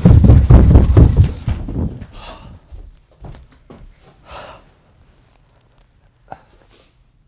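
Rapid, loud footsteps of someone running down a staircase, stopping about two seconds in. Then quieter handling and rustling sounds, with one sharp click about six seconds in.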